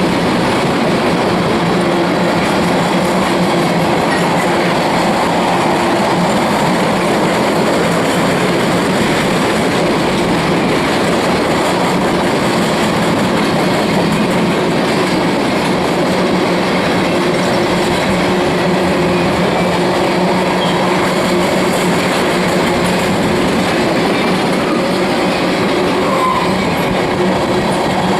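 Freight train of empty ethanol tank cars rolling past: a steady, unbroken run of steel wheels on rail.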